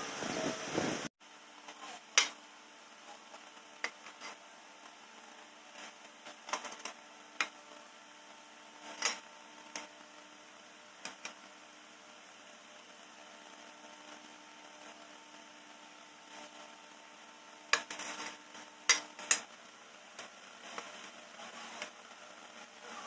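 Metal parts being handled on a workbench: a metal tube and flat washers clink and knock now and then, with a cluster of louder clinks near the end, over a faint steady hum.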